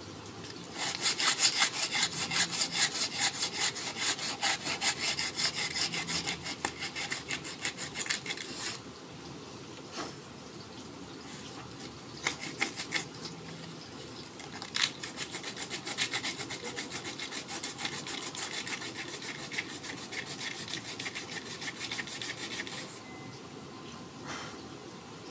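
Sandpaper rubbed by hand along a forest red gum didgeridoo: quick back-and-forth rasping strokes in two long runs, with a pause and a few short touches between them.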